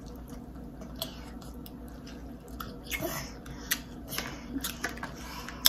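Close-up chewing and biting while eating a seafood boil, with scattered short wet clicks and a sharper click near the end.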